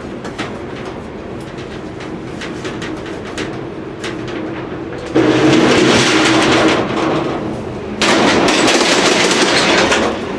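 Corrugated metal roll-up shutter door being raised, its slats clattering and rattling loudly in two runs, the first about five seconds in and the second from about eight seconds in, after lighter clicks and clanks.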